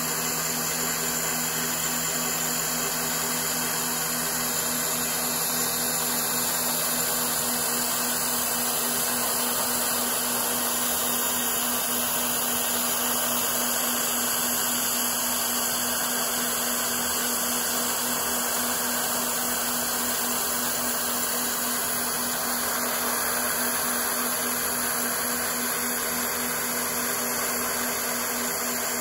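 Spindle of a CNC Bridgeport-type knee mill running as an end mill takes a light finishing cut around the edge of an aluminium plate part, with flood coolant spraying on the cutter. A steady whir and hiss with a constant hum underneath.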